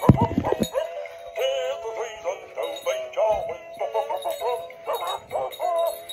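Dan Dee animated plush Christmas dog singing a Christmas song through its built-in speaker, with a thin sound and no bass. A low thump sounds in the first half second, and a smaller one about three and a half seconds in.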